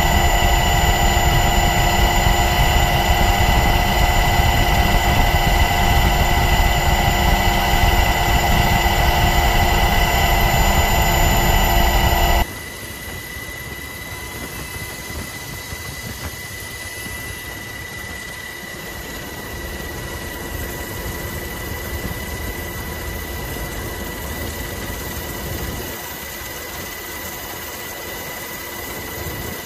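Steady aircraft engine noise from aboard the filming aircraft: a loud rumble with several high whines. About twelve seconds in it drops abruptly to a quieter steady hiss with one thin high whine.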